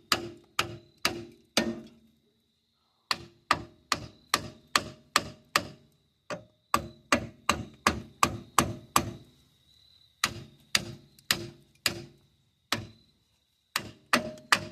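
Hammer blows on metal parts of a truck's front hub assembly, in runs of about two to three strikes a second with short pauses, each strike ringing briefly. The parts are stuck fast and are being knocked loose.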